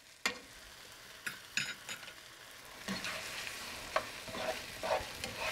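Meat and onions sizzling in a frying pan as a spoon stirs them, with a few sharp knocks of the spoon against the pan in the first two seconds. The sizzle grows louder about three seconds in.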